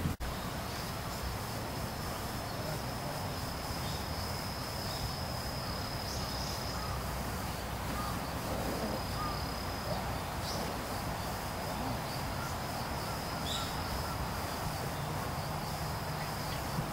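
An insect singing a steady, thin, high-pitched trill that pauses for a few seconds midway and then resumes, over a constant low background rumble and hiss.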